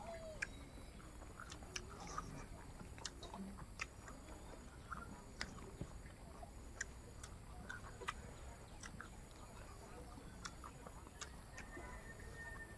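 Two people chewing and smacking their lips while eating by hand: faint, with scattered soft clicks about once or twice a second.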